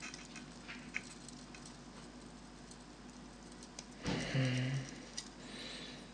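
Faint light clicks and handling noise from soldering a cable wire onto a mouse's circuit board. About four seconds in comes a short low hummed voice sound, and near the end a brief soft hiss.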